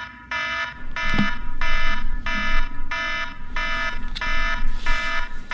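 Electronic wake-up alarm beeping over and over, short even beeps about three every two seconds. A single sharp knock about a second in.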